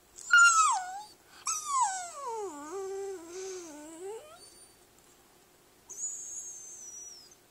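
Great Dane puppy 'talking': a short yowl that drops in pitch, then a longer howling whine that slides down, wavers and rises again at the end. Near the end comes a thin, very high-pitched squeal.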